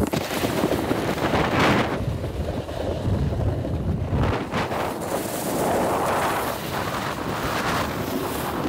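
Wind rushing over the microphone of a camera moving downhill behind a snowboarder, with the steady hiss and scrape of edges sliding on packed snow.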